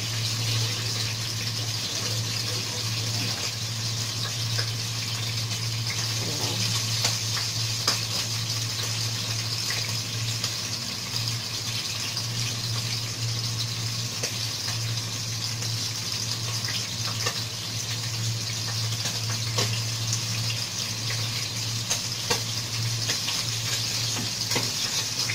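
Hot oil sizzling steadily as capelin fry, with a few faint crackles and a steady low hum underneath.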